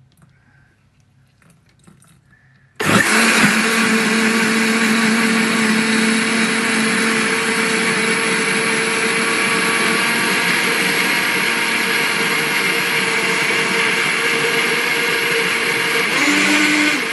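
Countertop blender switched on about three seconds in and running steadily, blending milk into a strawberry-and-cream paste for a milkshake.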